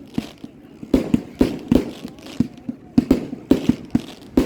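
Fireworks bursting in a rapid string of sharp bangs, about three a second, each trailing off in a short echo.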